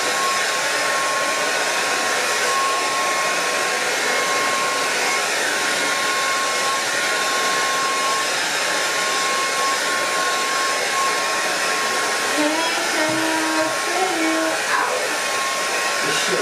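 Handheld hair dryer with a comb attachment blowing steadily, a high motor whine held over the rush of air.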